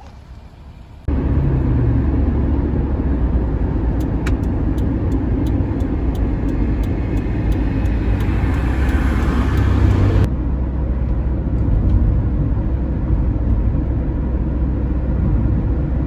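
A car on the move: a steady low rumble of engine and road noise that starts abruptly about a second in, with a few light clicks in the middle.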